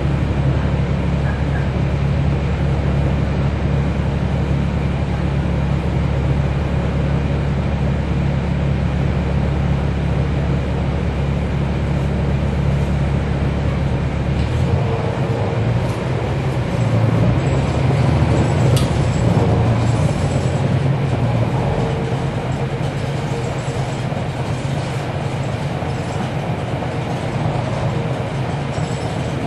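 Cummins ISL9 inline-six diesel engine of a NABI 40-SFW transit bus idling with a steady low hum. About halfway through the note changes and rises, getting louder for a few seconds as the bus moves off, then settles.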